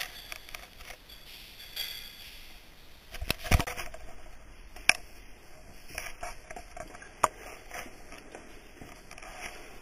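Scrapes, clicks and knocks of cavers clambering over wet boulders, with a heavy thump about three and a half seconds in and sharp knocks near five and seven seconds in.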